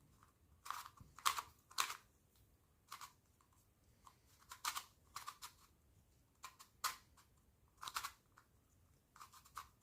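YuXin Little Magic Square-1 puzzle being turned by hand: irregular short clicks and scrapes of its plastic layers, a turning feel described as buttery but a bit scratchy.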